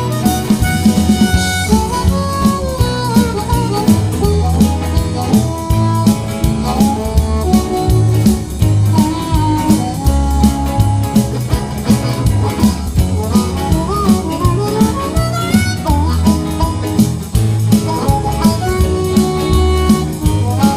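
Background music: an upbeat blues-style track with a steady beat, guitar and a harmonica-like melody line.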